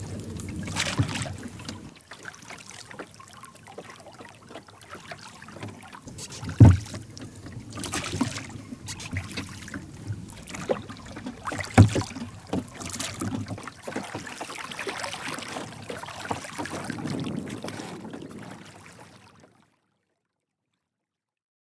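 Small rowboat being rowed: oars working the water with a steady wash of water and wind, broken by a few sharp knocks on the boat, two of them loud, about seven and twelve seconds in. The sound cuts off a couple of seconds before the end.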